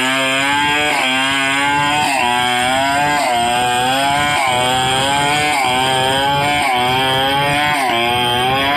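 Stihl 070 two-stroke chainsaw running at high revs under load while ripping a log lengthwise into planks. Its pitch sags and recovers about once a second.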